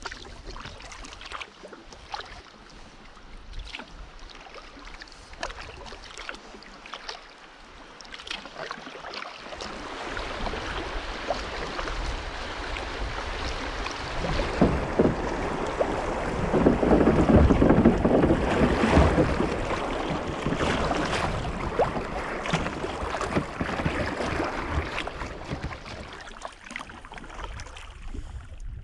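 River water rushing and splashing around a kayak's hull as it runs through a shallow riffle. The sound grows louder toward the middle and then fades as the water calms. Small splashes are heard in the quieter first part, and there is some wind on the microphone.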